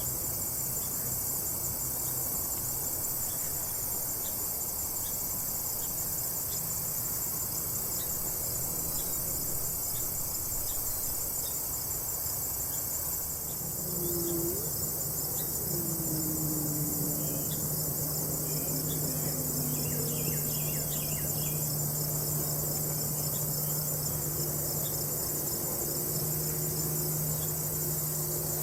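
Steady, high-pitched insect chorus of crickets trilling in a late-summer prairie. About halfway through, a low droning hum with some gliding tones joins it.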